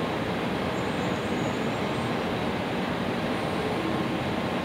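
Steady cabin noise inside an N700 series Shinkansen passenger car: an even rumble and hiss that holds at one level.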